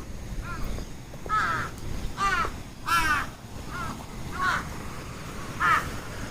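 Birds calling repeatedly with short, pitched calls, about eight in a few seconds, the loudest about halfway through.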